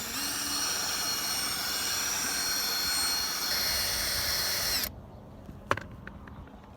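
Small high-speed power drill whining steadily as it drills out a rivet on a diecast model car, sagging briefly just after the start and cutting off suddenly about five seconds in. A single light click follows.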